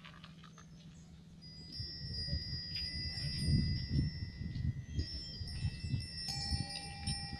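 Small metal wind bells hanging at a temple's eaves ringing in the breeze. Several clear tones hold for seconds, with new strikes about a second and a half in, at about five seconds and just after six.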